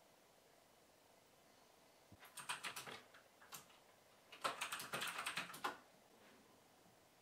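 Typing on a computer keyboard: a short run of quick keystrokes about two and a half seconds in, a single click, then a longer run of keystrokes from about four and a half seconds to nearly six.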